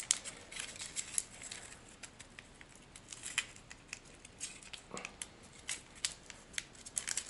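Quiet handling noise: a scatter of light, irregular clicks and paper rustles as a piece of paper is readied as a stand-in cleaning patch and fitted to a gun-cleaning rod's tip, with one slightly heavier knock about five seconds in.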